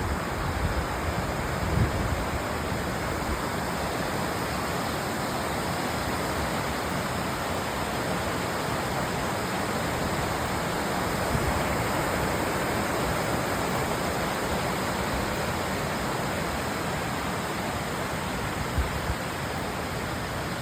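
Steady rushing of the Dunning Springs waterfall, a constant even roar of falling water, with a few faint low thumps.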